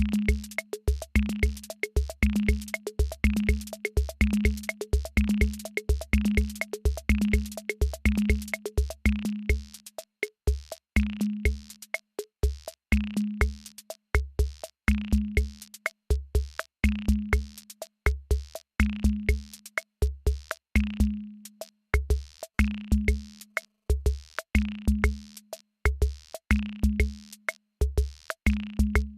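Electronic drum-machine beat from the MiniP7 V2: deep kicks, a short low pitched note, clicks and crisp hi-hat-like hits repeating in a steady loop. About ten seconds in, the pattern thins out to a sparser groove.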